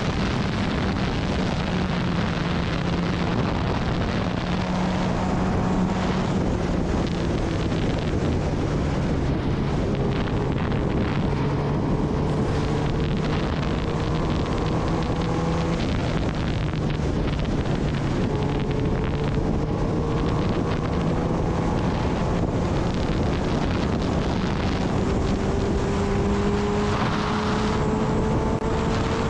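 Kawasaki Ninja ZX-10R inline-four engine running at a steady cruise under heavy wind rush on the microphone. The engine note drifts slowly up and down with small changes of throttle.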